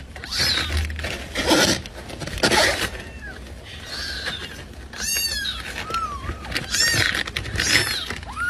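A white kitten mewing, about five short high mews that rise and fall in pitch in the second half, after a few short noisy scuffles.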